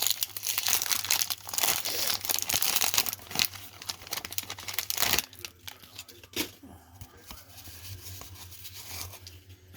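A 1991 Topps baseball card pack wrapper being torn open and crinkled: dense, loud crackling for about five seconds, then softer, scattered crinkling.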